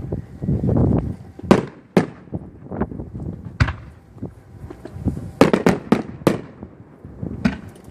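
Fireworks display going off: a string of sharp bangs over a low rumble, with a quick cluster of cracks about five to six seconds in.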